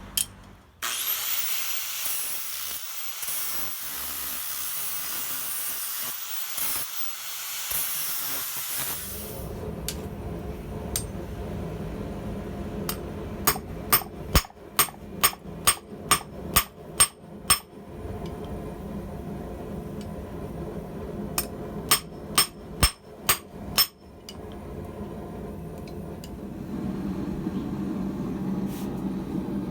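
Hand hammer striking steel on an anvil while forging blacksmith tongs: a run of about ten ringing blows at roughly two a second, then after a pause about six more. Before the blows there is a steady hiss lasting several seconds, and near the end a low hum comes up.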